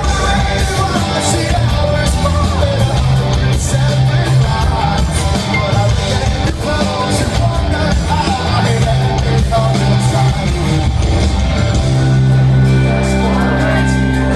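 Live rock band playing loud: electric guitars, bass and drums, with a lead vocal singing over them, heard from within the audience. Near the end the band holds a low note.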